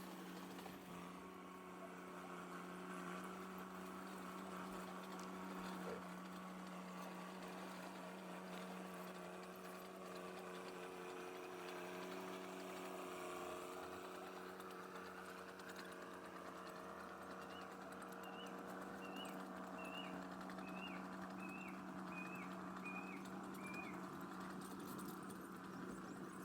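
An engine hums steadily at an even pitch. In the second half a bird gives a run of about nine short, falling chirps, roughly one a second.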